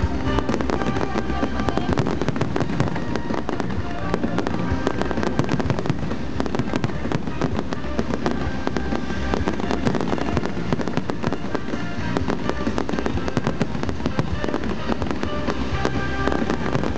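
Aerial fireworks shells bursting in a rapid, continuous barrage of bangs and crackling, with music playing underneath.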